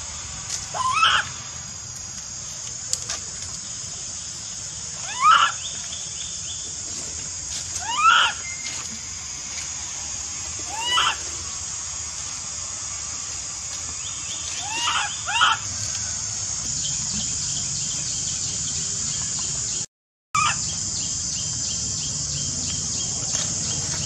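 Baby macaque crying: a short, high call that rises and falls, repeated every three to four seconds, over a steady high hiss.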